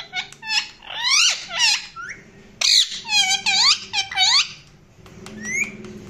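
Caged ring-necked parakeet calling in a quick run of shrill chirps and whistles, some sweeping upward and others dipping down and up, with a loud squawk about two and a half seconds in. The calling stops about five seconds in.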